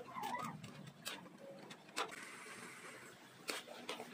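Metal tongs clicking and scraping against a large metal wok while tossing stir-fried noodles, with scattered sharp clicks and a soft hiss in the middle.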